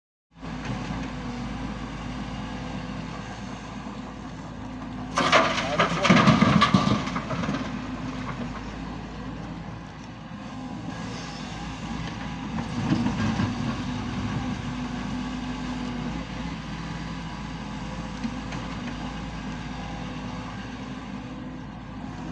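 Doosan DX140 excavator running steadily, with a loud clatter about five to seven seconds in.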